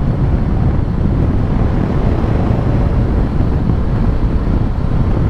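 Loud, steady wind noise on a helmet microphone while riding a Suzuki GSX-S1000GT motorcycle, with the bike's running and road noise underneath. The external microphone sits in a dead cat inside the helmet's cheek pad pointing downwards, which lets the wind through.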